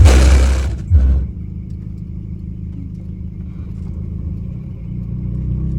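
A car sound system pushing very loud, deep steady bass, which stops about a second in, leaving a vehicle engine running with a steady low hum.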